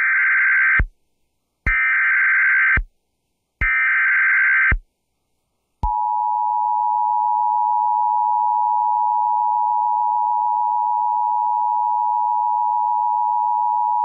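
Emergency Alert System activation on FM radio: three short bursts of digital SAME header data, then the two-tone EAS attention signal held steady for about eight seconds, announcing a severe thunderstorm warning.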